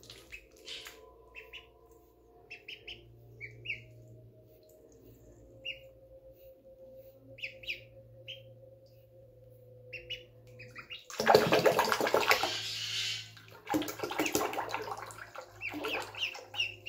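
Magpie ducklings peeping in short high calls, with loud bursts of splashing about two-thirds of the way through as they flap their wings in shallow water in a sink.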